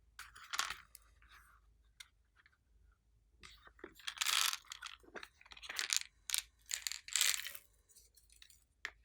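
Glossy slime being squished and stretched by hand, giving sticky crackling and popping sounds in short bursts. There is one burst near the start and a busier run of them in the second half.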